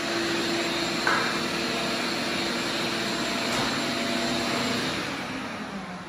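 A small electric motor running with a steady whine and hiss, with one short click about a second in; near the end it slows and fades, its hum dropping in pitch.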